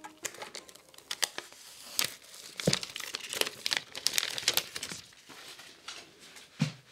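Clear plastic shrink-wrap being torn and peeled off a sealed iPhone box, crinkling and crackling. There is a dull knock about two-thirds of the way in and another near the end as the box is handled.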